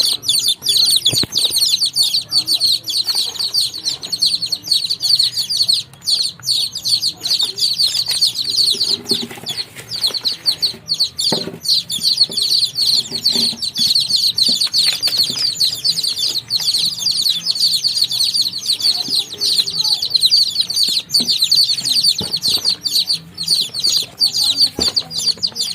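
A brood of baby chicks peeping constantly, many high-pitched chirps overlapping, with occasional soft thumps and scuffling among them.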